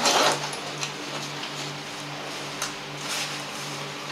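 Gear being handled: a brief rustle at the start, then a few light knocks and clicks as small propane gas canisters are taken out of a backpack and set on a table. Under it runs a faint low hum that pulses about twice a second.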